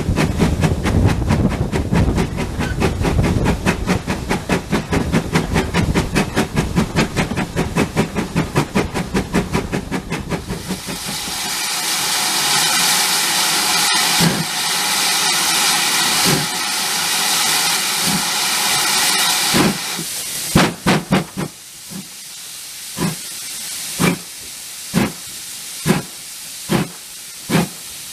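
GWR tank steam locomotive working along the line, its exhaust beating rapidly and evenly for about the first ten seconds. A loud steady hiss of steam then takes over for about nine seconds. After that come single heavy knocks about once a second.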